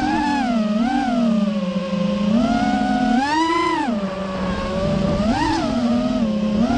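FPV racing quadcopter's brushless motors and propellers whining, the pitch swelling and dropping as the throttle is punched and eased through turns and dives, with a big surge a little past the middle.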